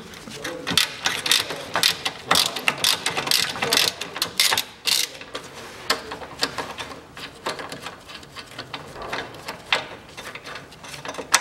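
Hand ratchet wrench clicking while undoing a 14 mm bolt on the rear engine mount, in quick irregular runs of clicks that are busiest in the first half, with one loud click near the end.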